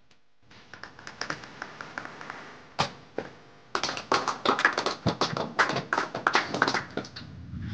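A quick, irregular run of sharp taps and clicks over a faint hiss, getting denser and louder about four seconds in.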